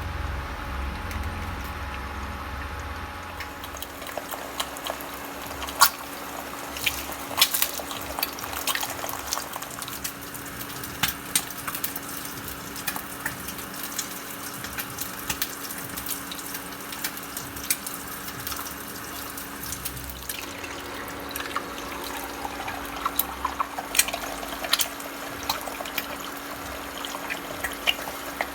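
Water running from a tap into a sink, a steady splashing hiss, with scattered short clinks and knocks of things being handled in it.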